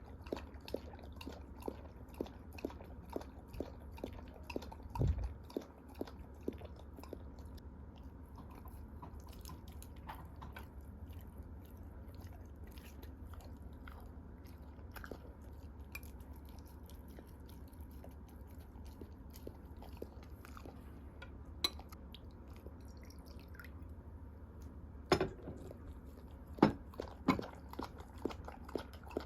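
Jindo dog chewing food, a steady rhythm of about two chews a second at first, then fewer, louder bites near the end.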